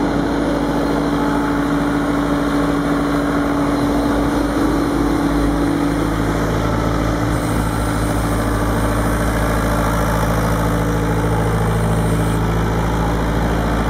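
Bobcat S130 skid steer loader's diesel engine running steadily, its tone shifting slightly about halfway through.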